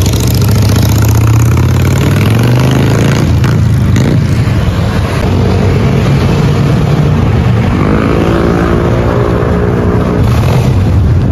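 Harley-Davidson Sportster 1200's V-twin engine running loud as the motorcycle rides off. Its revs rise in pitch in the first few seconds and again about eight seconds in.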